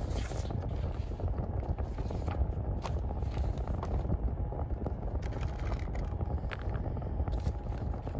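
Sheets of paper handled at a desk, shuffled and flipped, with a few light knocks, over a steady low rumble.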